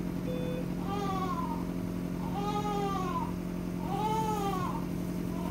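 Newborn baby crying in short wails that rise and fall in pitch, three of them about a second and a half apart, over a steady hum.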